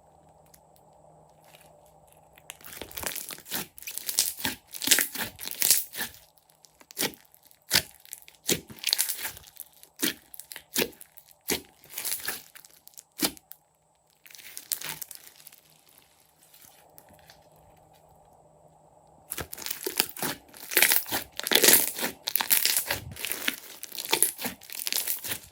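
Slime being squeezed and pressed by hand, giving runs of sticky crackles and pops. It starts about two seconds in, eases off around the middle and picks up again near the end.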